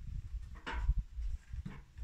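A heavy log being heaved and shifted against a steel sawmill frame: uneven low thumps and rumbling, with a short rasping sound about two-thirds of a second in and a fainter one near the end.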